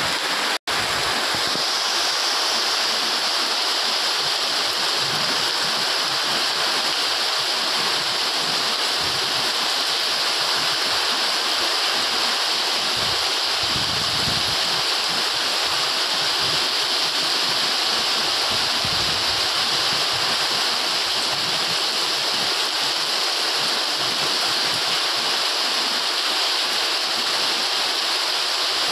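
Heavy rain pouring steadily, an even, dense hiss of downpour, broken once by a split-second dropout about half a second in.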